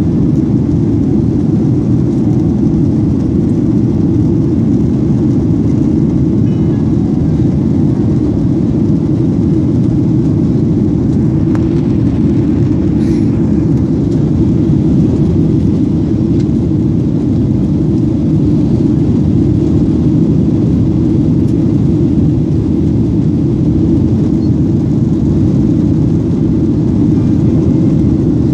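Jet airliner cabin noise heard from a window seat: a steady, loud, deep drone of the engines and airflow during the climb after takeoff.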